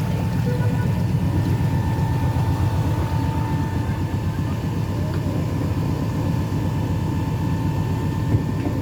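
Sightseeing boat's motor running steadily under way, a low rumble with a faint steady whine above it.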